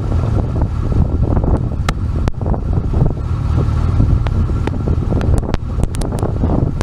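Strong wind buffeting the microphone, a steady low rumble, with a scattering of sharp ticks.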